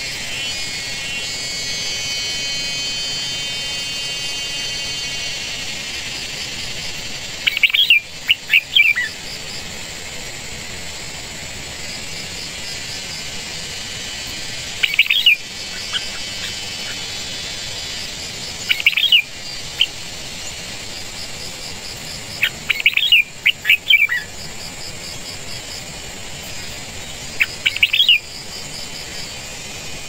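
Red-whiskered bulbuls at the nest giving five short bursts of sharp, quick chirps several seconds apart, over a steady high hiss.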